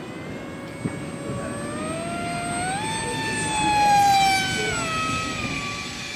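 Foam RC plane's motor and propeller whining in flight. The pitch climbs about three seconds in, is loudest about a second later, then slides down as the plane passes.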